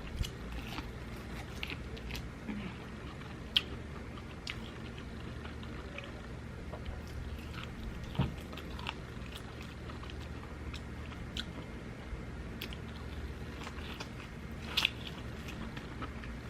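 Close-miked eating sounds: a person chewing with scattered wet mouth clicks and smacks, a few of them louder.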